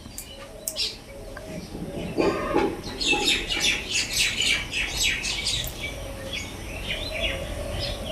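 Small birds chirping: a quick, dense run of short, high chirps about three seconds in, thinning to scattered chirps toward the end.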